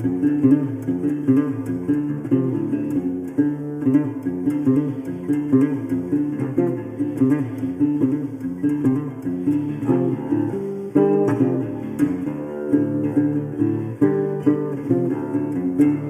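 Background music: acoustic guitar strumming and picking with a steady rhythm.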